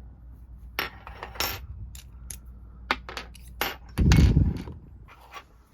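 Small sharp clicks and clinks of a titanium pen's metal parts being handled and fitted together, with one louder dull thump about four seconds in.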